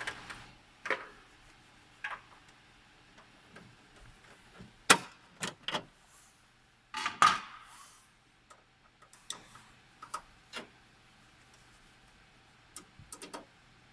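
Irregular clicks and knocks of plastic and metal parts being handled while taking the hard drive out of a Ricoh Aficio MP 2851/3351 copier. A sharp knock comes about five seconds in and a longer rattle around seven seconds, over a faint steady hum.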